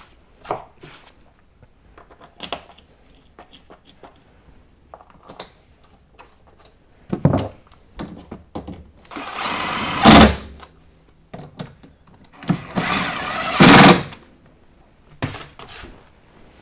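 Milwaukee M18 cordless impact driver hammering in two bursts of about a second each, about nine seconds in and again three seconds later, backing out a T40 Torx bolt from a lower net bracket. Light clicks and knocks of tool handling in between.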